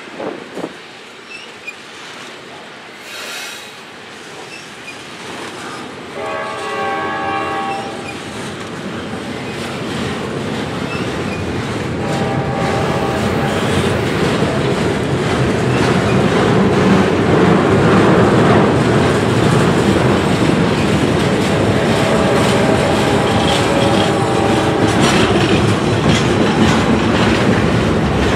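Double-stack container freight train rolling past, its wheel and rail noise building steadily louder, with clickety-clack of wheels over rail joints. Brief high-pitched tones ring out about six seconds in, again around twelve seconds and near twenty-two seconds.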